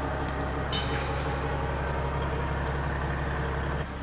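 A machine running with a steady low, even drone, with a brief light clatter about a second in; the drone drops off suddenly just before the end.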